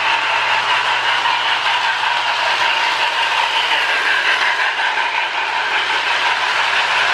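Marx 1829 Hudson toy steam locomotive running steadily on its track, with its Sound O Power tender's electronic steam-engine sound playing loudly over the motor and wheel noise.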